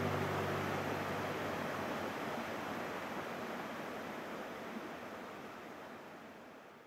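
Steady rushing noise, like wind or running water, fading out gradually while the last low notes of an acoustic guitar die away in the first second or so.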